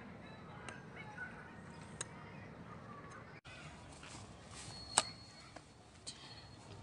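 Faint outdoor background noise with a few short, sharp clicks, the loudest about five seconds in, and a momentary dropout at an edit about three and a half seconds in.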